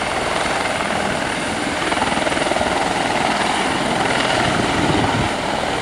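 Military helicopter running, a loud steady rotor and turbine noise with a fast, even beat.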